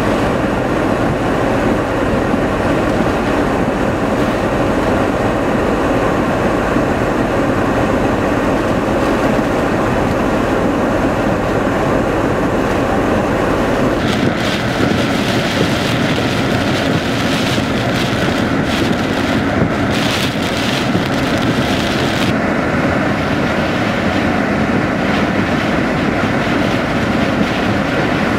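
Hurricane Irene's wind and rain blowing hard, a loud unbroken rush with heavy buffeting on the microphone. About halfway through the deep rumble drops away and a brighter hiss takes over.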